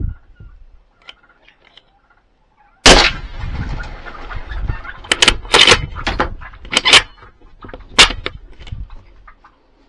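A single rifle shot about three seconds in, followed by a run of sharp slaps and thrashing as the shot Rio Grande turkey hen flops and beats its wings on the ground.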